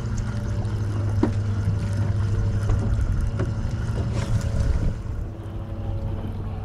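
Boat engine running steadily with a low hum, with a few light clicks and knocks over it.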